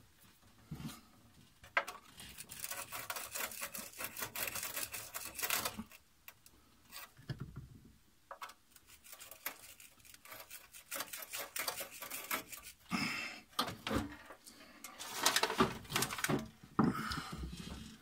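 Handling noise from a sheet-metal power supply cabinet being held and shifted against a wall: scraping, rubbing and light taps that come in several bursts with short quiet gaps between.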